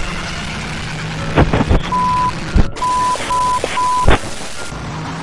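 A man swearing, his curses covered by four short censor bleeps at one steady pitch, about half a second apart, with a few sharp loud pops among them.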